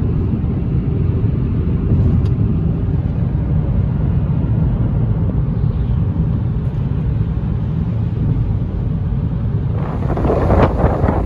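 Car driving on a paved road, heard from inside the cabin as a steady low road and engine rumble. About ten seconds in it changes to the broader rushing of a large waterfall with wind buffeting the microphone.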